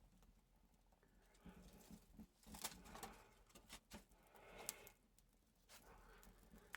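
Near silence, with a few faint snaps and rustles of thin sticks being laid on a small, newly lit campfire.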